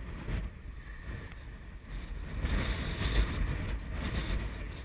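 Wind buffeting the microphone, with water sloshing and splashing as a rescuer wades through flood water; the splashing swells about halfway through.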